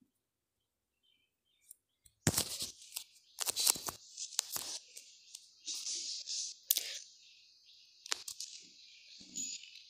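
Wooden rolling pin rolling out a stack of layered dough rounds on a floured wooden board, starting about two seconds in: irregular dry rubbing and scraping strokes with a few sharp knocks.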